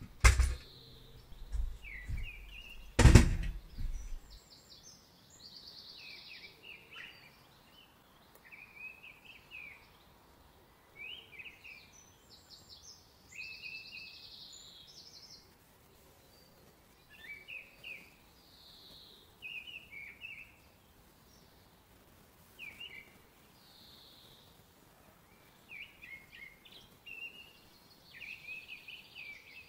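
Small songbirds singing in short, repeated chirping phrases throughout. A sharp knock about three seconds in is the loudest sound, with a lighter click just before it.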